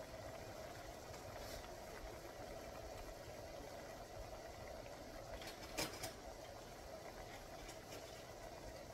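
Faint steady hum in a kitchen, with one short clink a little before six seconds in.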